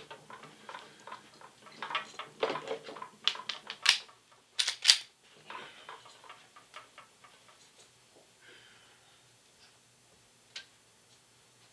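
A run of light clicks and knocks from objects being handled, with a few sharp, loud clacks about four to five seconds in, then one more click near the end.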